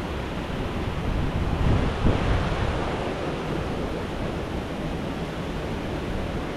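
Steady rush of river water, with wind buffeting the microphone and a stronger gust about two seconds in.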